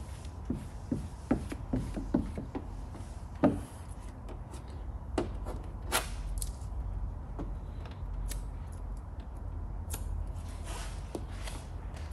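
Hands working vinyl wrap film and masking tape on a car door panel: a run of small clicks and taps, one sharper knock about three and a half seconds in, a few more clicks, then light rubbing.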